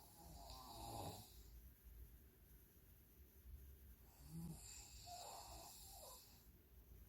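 A woman snoring faintly through her open mouth while lying on her back: two snoring breaths about four seconds apart.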